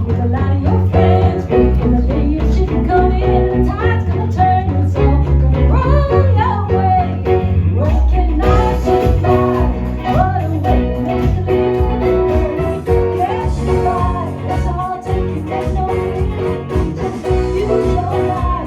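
A live band playing a song with guitar and bass over a steady beat.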